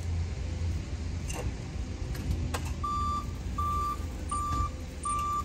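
Forklift's reverse warning beeper: one steady beep repeating about every three-quarters of a second, starting about halfway through, over a low engine hum. There are two sharp knocks shortly before the beeping starts.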